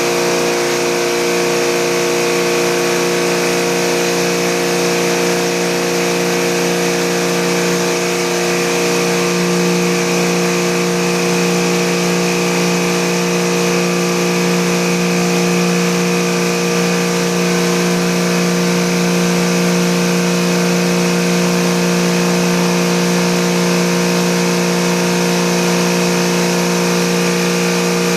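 Motor of an automated air-conditioner cleaning machine running at a steady speed: a constant, even hum with a hiss above it.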